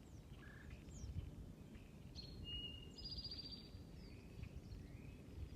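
Outdoor ambience: a low steady rumble of background noise with a few short, high bird whistles and chirps, clustered between about two and four seconds in.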